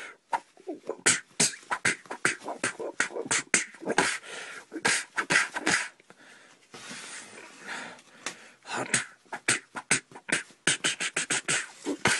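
A person making rapid fight sound effects with the mouth: quick percussive pops, clicks and hisses in a fast flurry, with a longer hissing stretch about seven seconds in.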